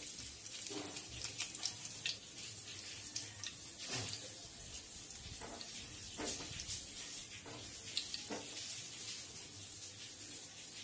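Hot oil sizzling in a nonstick kadai as bay leaves are dropped in, with scattered crackles and the silicone spatula now and then scraping and tapping the pan.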